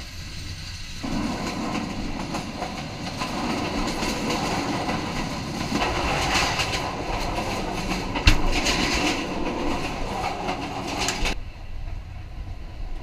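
Passenger train running, its wheels clattering over the rails with irregular clicks. The noise grows louder about a second in, there is a sharp knock about eight seconds in, and the higher part of the noise cuts off suddenly near the end.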